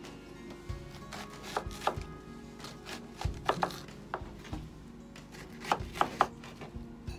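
Kitchen knife slicing an onion on a plastic cutting board: a string of uneven knocks as the blade cuts through and meets the board, the loudest few near the end.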